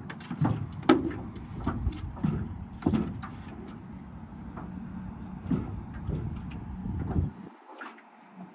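Low wind rumble buffeting the microphone, with scattered knocks and clatter on an aluminum jon boat. The rumble cuts off suddenly about seven seconds in.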